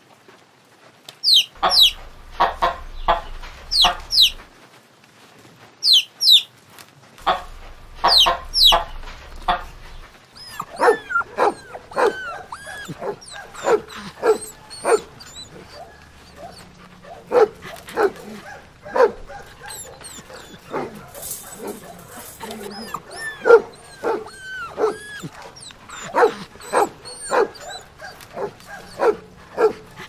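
Chicks peeping in sharp falling chirps, mixed with hens clucking, for the first ten seconds or so. Then several dogs bark over and over in short calls.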